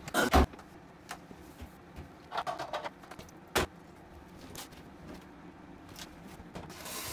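Kitchen items being handled and set down around a stainless-steel sink and drainer: a loud knock at the start, a short rattling clatter about two and a half seconds in, a single sharp knock a second later, and a brief hiss near the end.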